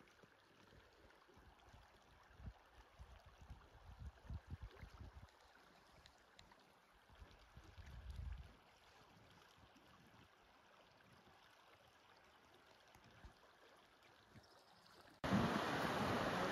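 Creek running: a faint steady rush of water with a few low rumbles, then about fifteen seconds in, a sudden jump to a much louder rush of running water.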